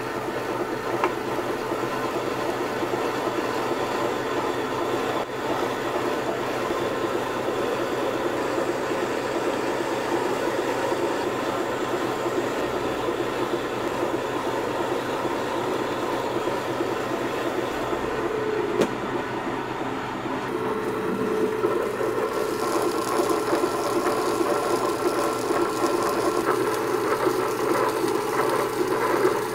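Stone melanger running: grooved stone rollers turning in a rotating steel drum of liquid chocolate, grinding and refining cocoa nibs into chocolate. A steady mechanical grinding noise, with one sharp click about nineteen seconds in.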